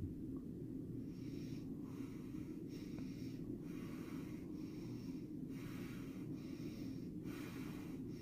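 A woman breathing fast and noisily, short rasping breaths about one a second starting about a second in: a breathing pattern of the kind seen near the end of life.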